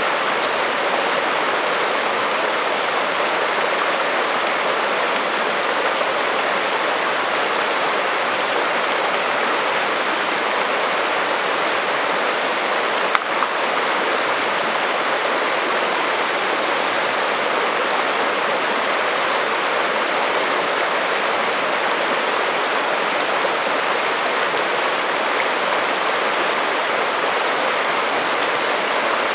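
Chalk Creek, a shallow alpine mountain creek, rushing steadily over rocks and cobbles. One brief click about halfway through.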